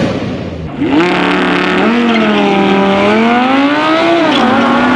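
Lamborghini Huracán LP610-4's V10 engine held at high revs on launch control, a loud steady engine note that wavers slightly and dips in pitch about four seconds in. For the first second, the tail of crackling pops from an RB26-powered Nissan Skyline R32 bouncing off a 2-step rev limiter.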